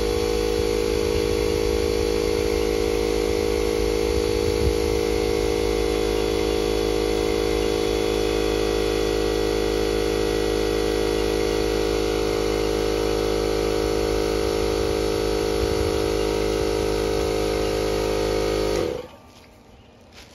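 Compressed air rushing through a venturi coolant vacuum refill tool on the radiator filler neck, drawing vacuum on the engine cooling system. It is a loud, steady hiss with a whine, and cuts off suddenly near the end.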